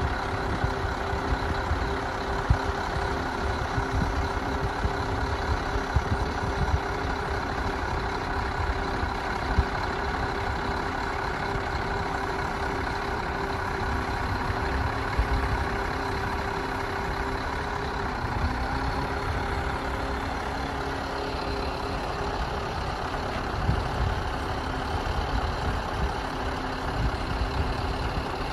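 Scania R560 truck's V8 diesel running steadily at idle to drive the loader crane's hydraulics while the boom is raised and telescoped out. A steady hum sits over the engine and shifts in pitch about two-thirds of the way through.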